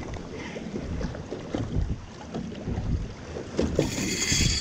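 Wind buffeting the microphone over water slapping the hull of a small fishing boat, with scattered knocks. Near the end a spinning reel gives a short high-pitched whir as the angler works a hooked fish.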